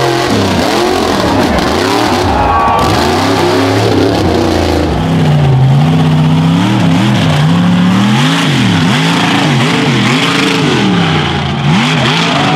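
Lifted mud truck engines running at hard throttle, their pitch rising and falling over and over as the throttle is worked through the pit.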